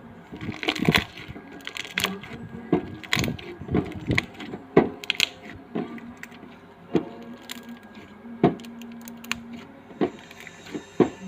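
A string of irregular sharp clicks and knocks, roughly one or two a second, over a faint steady background.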